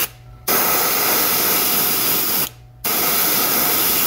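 Airbrush spraying paint as a steady hiss of air. It starts about half a second in, cuts out for a moment about two and a half seconds in, then resumes.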